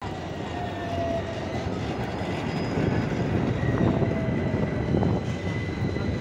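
Modern articulated electric tram running past on street rails: a steady rumble of wheels on track with thin high-pitched tones over it, loudest about midway through.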